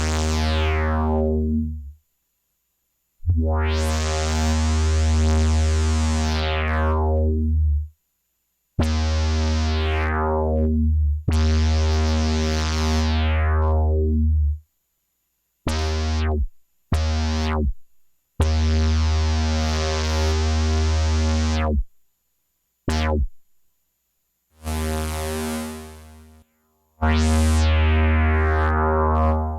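Home-built analog synthesizer, three oscillators through a voltage-controlled filter and amplifier with ADSR envelopes, playing a low, buzzy note over and over. Each note starts bright and its upper overtones fade as the filter envelope closes. Notes are gated on and off abruptly, some held for several seconds and some short stabs, and the last one fades out more slowly.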